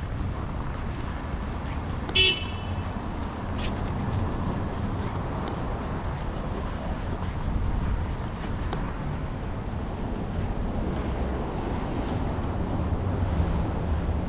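Steady street traffic rumble, with one short car horn toot about two seconds in.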